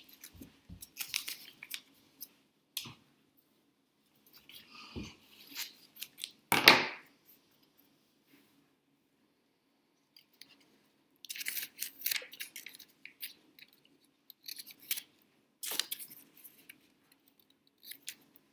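Scissors snipping through a paper card in short, irregular cuts, with paper handling between the snips; one louder sharp snip about six and a half seconds in.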